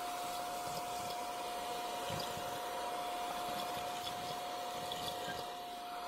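Brigii M1 handheld vacuum cleaner running and sucking up chip crumbs: a steady motor whine over the rush of air through the nozzle.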